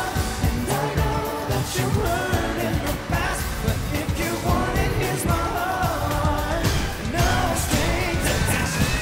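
Live pop song: male boy-band vocals over a driving, steady dance beat.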